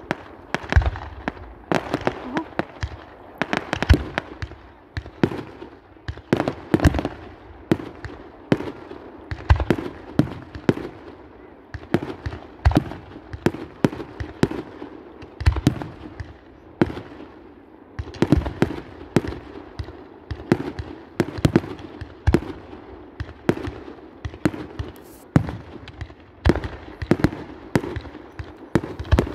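Fireworks going off in rapid succession: a dense, uneven run of bangs and pops, several a second, from firework batteries fired from the ground.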